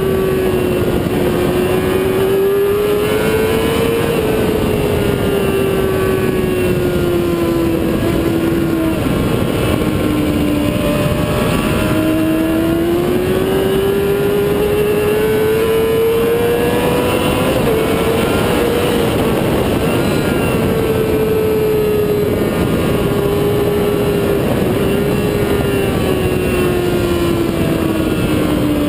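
Motorcycle engine running hard on a race track, its note climbing and falling as the rider works the throttle through the corners. Heavy wind rush on the bike-mounted camera's microphone.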